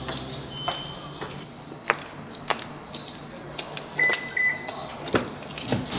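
Footsteps as sharp scattered taps and clicks, and about four seconds in a car remote's unlock beep: one short high tone, then two quick chirps.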